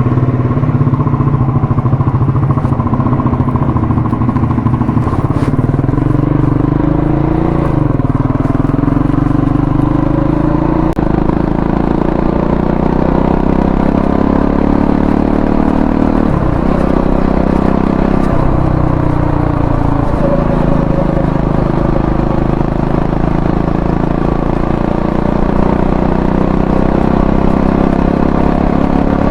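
Triumph Scrambler 400X's single-cylinder engine running, its revs rising and falling several times. A little past halfway there are two sharp drops and recoveries in engine speed.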